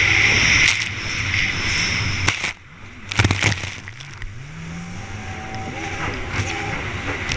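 Racing jet ski's engine running at full throttle over choppy water, with spray and wind on the onboard microphone. About two and a half seconds in, the engine note drops away, the hull then slams onto the water with a few hard smacks, and the engine revs back up.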